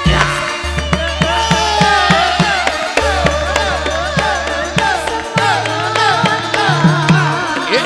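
Live campursari music: a woman sings a Javanese melody with sliding, ornamented lines over steady kendang drum strokes, long sustained bass notes that change every two or three seconds, and the band's instruments.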